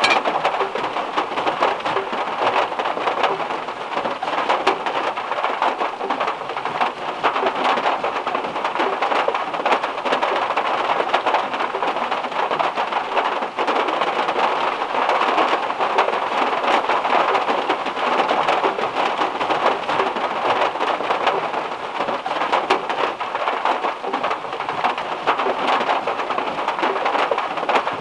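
Heavy rain falling steadily on the metal roof of a VW Beetle, heard from inside the cabin as a dense, even patter of drops.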